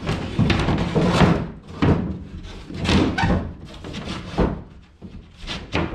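Quarter-inch plywood side panel knocking and thudding against the metal hull and floor of a jon boat as it is pushed into place, a string of irregular knocks about half a second to a second apart.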